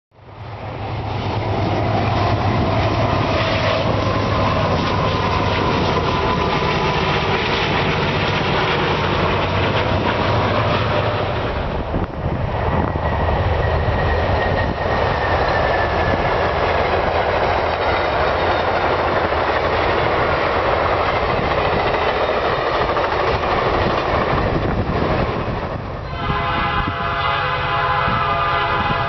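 Amtrak passenger train headed by two GE Genesis diesel locomotives passing at speed: a loud, steady rumble of engines and wheels on the rails. Near the end a train horn sounds a held chord.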